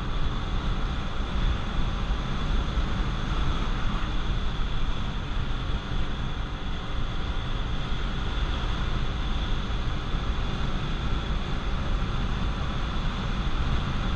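Inside the cabin of a Honda Accord CB7: its four-cylinder engine running steadily under way, mixed with constant road and wind noise.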